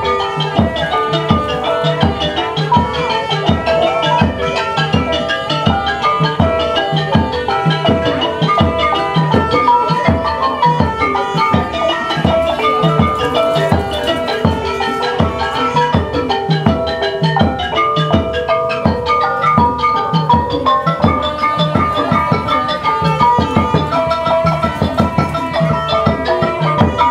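Traditional Khmer pinpeat ensemble playing: a busy melody of held and repeated pitched notes over fast, steady drum strokes.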